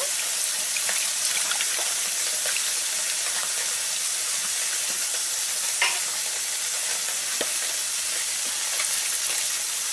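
Fish frying in hot oil in a kadai: a steady sizzling hiss with scattered small pops and one louder crackle about halfway through.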